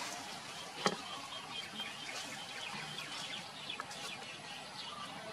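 Outdoor ambience of scattered, faint bird chirps, with a single sharp click about a second in.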